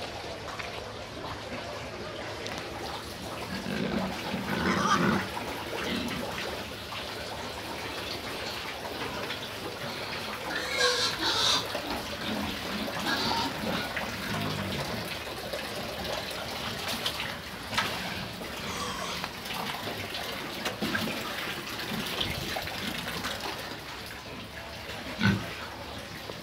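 Pigs grunting now and then, with louder calls about five and about eleven seconds in, over a steady hiss.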